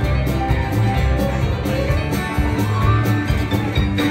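Live country-rock band playing an instrumental passage: strummed acoustic guitar and electric guitars over bass and drums keeping a steady beat.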